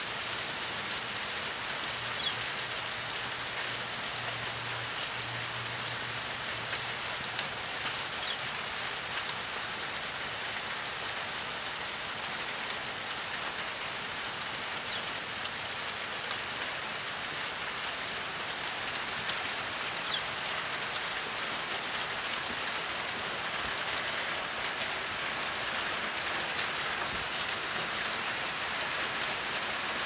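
Steady rain falling, an even hiss with scattered faint ticks of drops.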